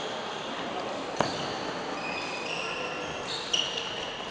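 Badminton rally: two sharp racket strikes on the shuttlecock, one about a second in and one about three and a half seconds in. Short squeaks from players' court shoes on the floor come between them.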